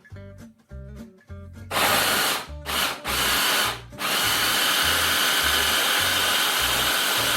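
Electric blender motor running in three short pulses, then steadily for about four seconds, blending eggs, banana and oats into pancake batter.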